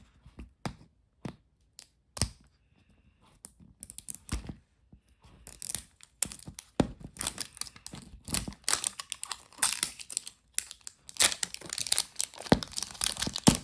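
Plastic wrapper being peeled and torn off a Miniverse capsule ball: a few scattered crackles at first, then steady crinkling and tearing from about halfway in.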